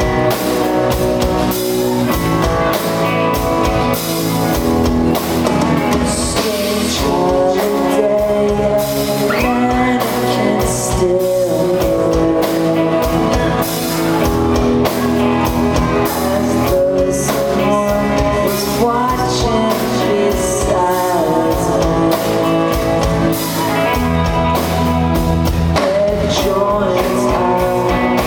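A rock band playing live: electric guitars, drums and a singer.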